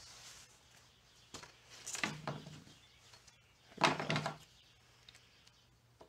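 Handling noise on a wooden workbench: a plastic spring clamp and wire being picked up, knocked and scraped on the board. There are two short bursts of clatter, about two seconds in and about four seconds in, the second louder.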